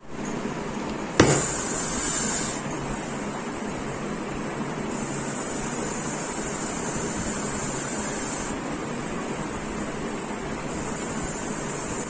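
Russell's viper hissing: a steady hiss with stretches of stronger, sharper hissing that come and go, the sign of an agitated, defensive snake. A sharp knock about a second in.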